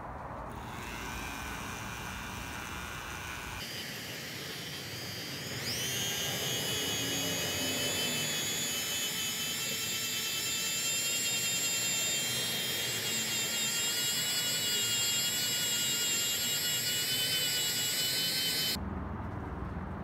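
Dremel rotary tool with a felt polishing wheel spinning up with a rising whine, then running at a steady high whine as it buffs a sheet-metal coffee-grinder part; the whine cuts off suddenly near the end.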